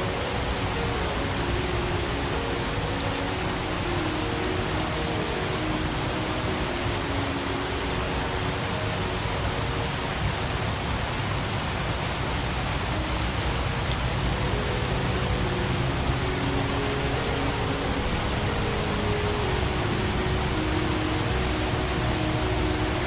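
Steady rushing of a forest stream, with soft background music of slow held low notes underneath.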